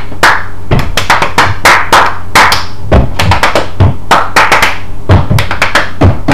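A group clapping hands in a fast rhythm, mixed with heavy thuds of feet stomping on an apartment floor, several strokes a second: a group 'thunderclap'.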